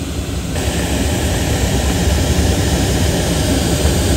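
Loud, steady rush of wind noise inside a sailplane's cockpit at high speed, about 250 km/h, with no engine running; the hiss turns brighter about half a second in.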